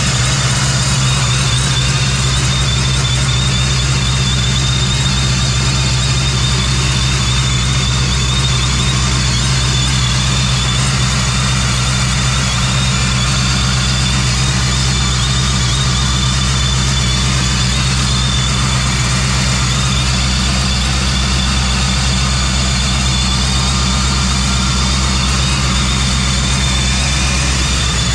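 Cammed 5.3 V8 idling steadily with a freshly rebuilt Procharger D1-X centrifugal supercharger whining over it as a steady high whistle. The whistle is loud because the blower outlet is open, with no intercooler piping hooked up yet.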